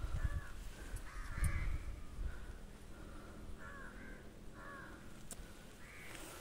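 Crows cawing repeatedly, short harsh calls a second or so apart. A few low thumps come in the first two seconds.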